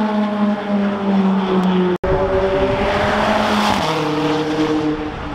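Supercar engines running hard through a coned track section: first a Ferrari V8, then, after an abrupt cut about two seconds in, a McLaren V8 with tyre noise, its pitch rising and then dropping about four seconds in.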